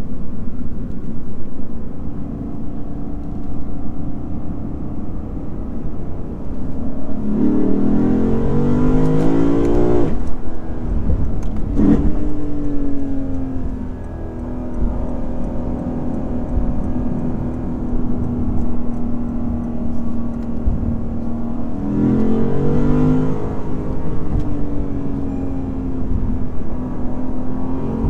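Lexus IS500's naturally aspirated 5.0-litre V8 running at steady revs, with tyre and road noise underneath. Twice, about a quarter of the way in and again near the end, the engine note climbs under acceleration, then drops back to a steady pitch.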